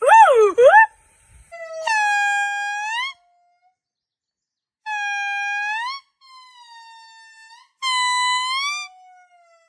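A monkey's high, horn-like calls: two quick up-and-down swoops at the start, then several long, steady calls of about a second each that turn up in pitch at the end, with fainter, lower calls between them.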